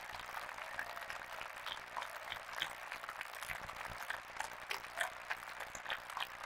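Spectators applauding in a large hall, a thinning scatter of irregular hand claps.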